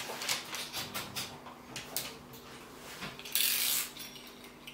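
Light clicks and knocks of a metal baking tray being handled and put into the oven, then a short hiss-like rustle about three and a half seconds in.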